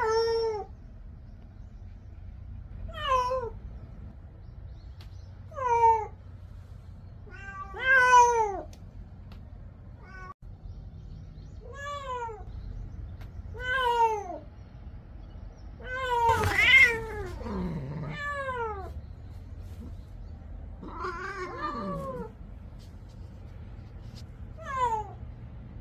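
A domestic cat meowing over and over: about ten drawn-out meows, each falling in pitch, a few seconds apart. The loudest come about two-thirds of the way through, one of them sliding down into a low yowl. The owner reads the meowing as anger at a sibling cat being kept shut in a pet carrier.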